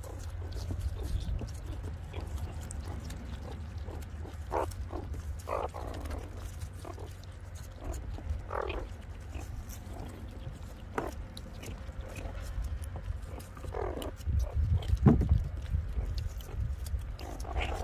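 A group of meerkats making short calls while feeding on watermelon. The calls come every second or two, with the loudest cluster about fifteen seconds in, over a steady low rumble.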